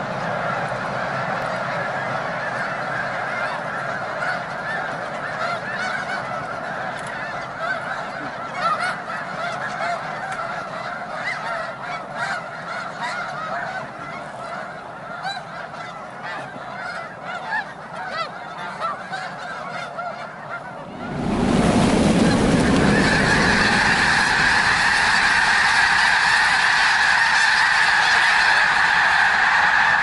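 A huge flock of snow geese calling on the water in a dense, continuous chorus of honks. About two-thirds of the way through, the whole flock takes off at once: the sound jumps suddenly much louder, with a heavy rush of wingbeats under massed calling that stays loud to the end.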